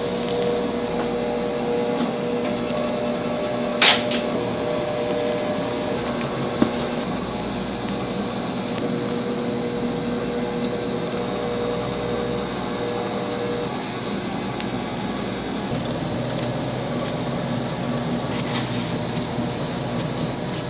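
Steady machine hum with a low droning tone, broken by one sharp click about four seconds in.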